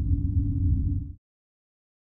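Deep, low drone of the closing title music, cutting off suddenly a little over a second in.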